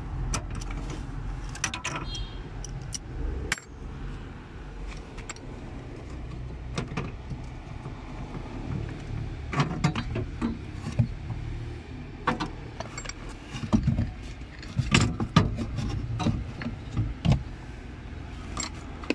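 Metal parts under a car's dashboard being handled while the accelerator pedal sensor's cover comes off: scattered clicks and light metallic knocks, thickest from about ten seconds in to near the end, over a steady low rumble.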